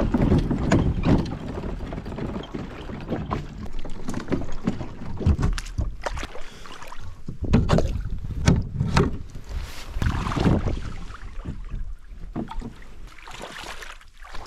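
Plastic fishing kayak being slid and bumped over a gravel launch ramp into shallow water, with irregular knocks on the hull and boots splashing while wading.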